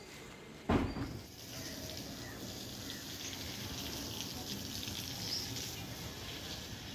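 Water spraying from a hose onto freshly cast concrete, a steady splashing hiss, as the new basement slab and pillars are watered to cure them. A single sharp knock comes just before the spraying sound settles in, under a second in.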